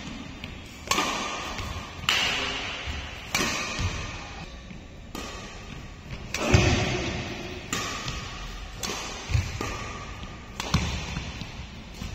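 Badminton rally: rackets striking the shuttlecock about nine times, a sharp hit every second or so, each one echoing in a large hall.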